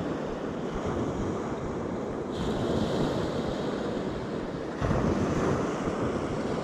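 Surf washing onto the beach with wind buffeting the microphone: a steady rushing that grows louder about five seconds in.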